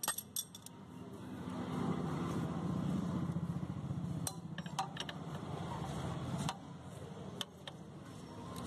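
Metal tools clinking and tapping as a Y-puller holding tool is handled and fitted onto a scooter's variator fan plate: scattered short clinks, a cluster about four to five seconds in, over a low steady hum.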